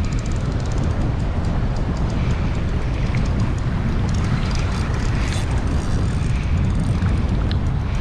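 Wind buffeting the microphone in a steady low rumble, over the wash of surf.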